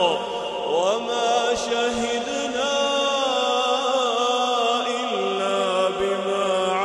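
A man reciting the Quran in a slow, melodic chanting style. He draws out long held notes that glide up and down in pitch.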